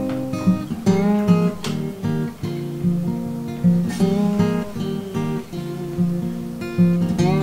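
Background music: a strummed acoustic guitar playing chords.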